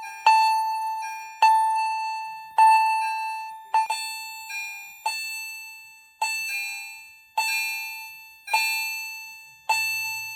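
EST fire alarm chime strobes sounding in alarm: a bell-like electronic chime about once a second, each strike ringing and fading before the next. Several units chime together and now and then fall slightly out of step, so some strikes come doubled.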